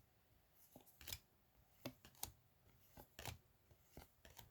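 Faint, scattered clicks and taps of trading cards being handled and flipped, about half a dozen soft ticks with near silence between them.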